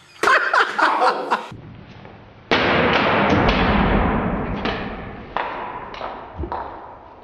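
A heavy crash about two and a half seconds in as an old hair dryer is smashed, with a clattering tail that fades over a couple of seconds, then several smaller knocks and thuds.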